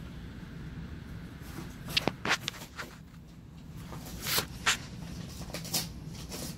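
Husky puppy chewing and tearing at a cardboard box: short, irregular rips and crackles of cardboard, several in quick succession about two seconds in and again from about four seconds in.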